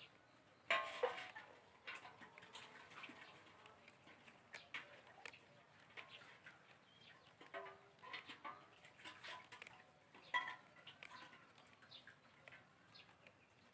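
Faint bird chirps over soft scattered clicks and rustles, with two sharper knocks, one about a second in and another later on.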